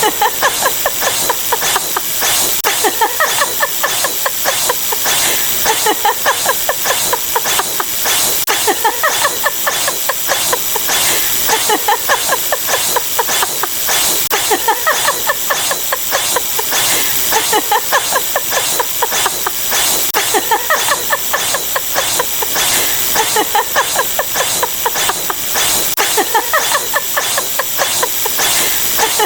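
Looping sound-effect track: a hissing, crackling noise with rapid clicks, and a recorded 'epic dragon roar' sound effect repeating about every three seconds.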